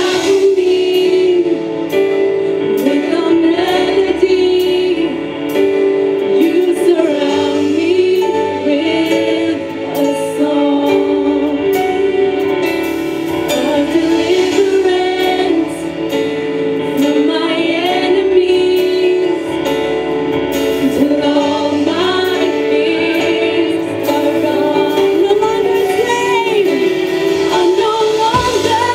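Two women singing a worship song together into microphones over a strummed acoustic guitar, with held low notes beneath that change every few seconds.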